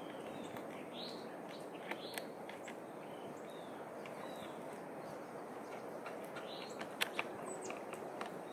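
Outdoor ambience: birds chirping now and then over a steady background hiss, with a few light clicks as a chainsaw's chain and bar are fitted by hand. The sharpest are two clicks about seven seconds in.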